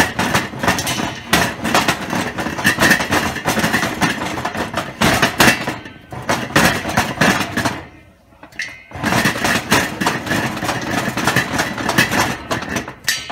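Lidded stainless steel pot of popcorn kernels in oil being shaken back and forth on a gas stove's grate: a fast, continuous metallic scraping and rattling. It eases briefly about six seconds in and stops for about a second near eight seconds before starting again.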